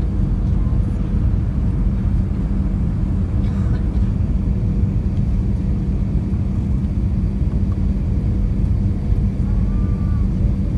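Steady low rumble of cabin noise inside a jet airliner on final approach: engines and airflow over the fuselage, with a constant hum tone running through it.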